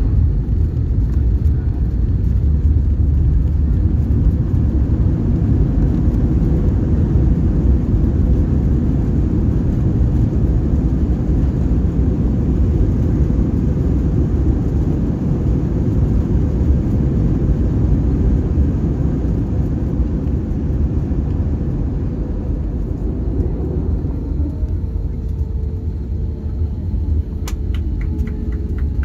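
Airbus A321 cabin noise during landing rollout: a loud, steady low rumble of the engines and the wheels on the runway as the airliner slows, easing slightly near the end, with a few sharp clicks just before the end.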